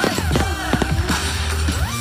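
Soundtrack music for a pyromusical fireworks show, played over loudspeakers in the open air, with frequent sharp pops and crackles from the fireworks going off.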